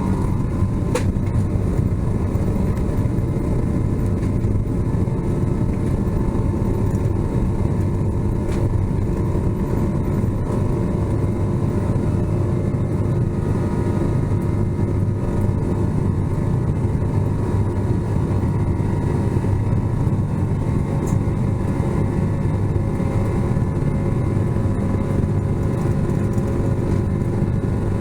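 Steady low drone of a Boeing 777-200ER's engines and airflow heard inside the cabin in flight, with a couple of faint clicks.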